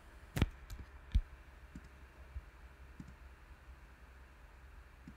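Computer mouse clicking a few times: two sharp clicks in the first second or so, then a few softer, scattered clicks, over a faint steady low hum.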